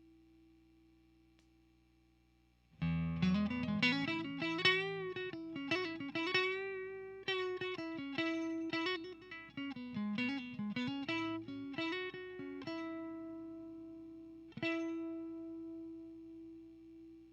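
Single-coil electric guitar played through a 12AX7 tube preamp pedal into a 6L6 tube power amp. A held note fades away, then about three seconds in a chord starts a melodic single-note phrase with string bends. Near the end one last note is struck and left to ring out.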